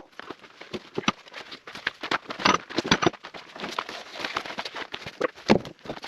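Firewood logs knocking and clattering as they are handled and stacked: irregular sharp knocks and thuds, a few of them louder, about half a second in, around two and a half seconds in, and near the end.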